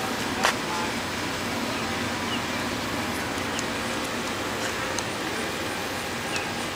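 Steady road noise of a car driving along a street, with a sharp click about half a second in.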